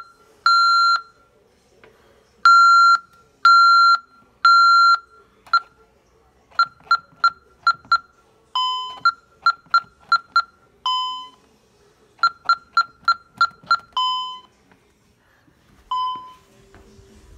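Safewatch Pro 3000 security alarm keypad beeping: three long, even beeps, then runs of about five or six quick key-press beeps as codes are keyed in. A single longer, lower beep follows each run, and a last lower beep comes near the end.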